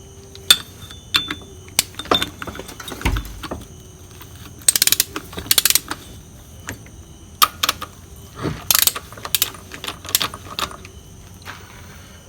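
Hand ratchet clicking in short quick bursts, with metal clinks and knocks of tools and engine parts, as the bolts of a two-stroke motorcycle engine's clutch pressure plate are run in. The bursts of clicking come at about five seconds in and again at about nine seconds in.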